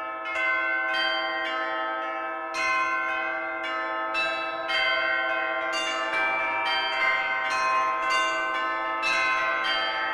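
Bells struck again and again, about every half second to a second, each ring hanging on and overlapping the next.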